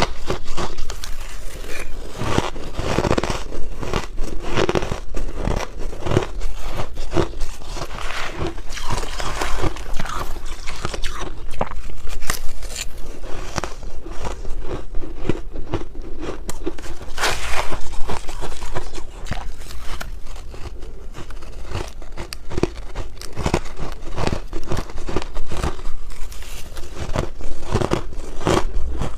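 Close-miked biting and chewing of crunchy, powdery white freezer-frost ice: a dense, irregular run of crisp crunches and crackles, bite after bite.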